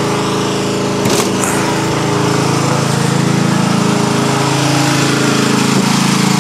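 An engine running steadily at constant speed, with a short clatter about a second in.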